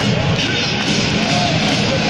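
Football supporters in the stands singing a chant together, a loud, steady mass of voices.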